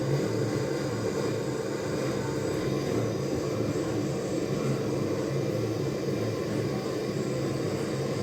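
Gas blowtorch flame burning steadily as it heats a copper pipe joint for soldering, a constant low rumble with no break.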